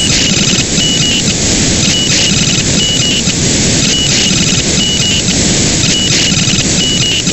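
Unidentified digital data signal on 440.930 MHz, received on an RTL-SDR and demodulated in upper sideband: a steady rushing hiss, with a short high beep repeating about once a second.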